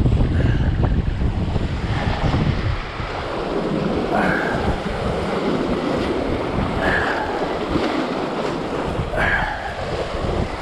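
Sea surf washing and breaking over shoreline rocks, with wind buffeting the microphone in a low rumble that is heaviest for the first few seconds. Three short higher-pitched sounds come about two and a half seconds apart over the surf.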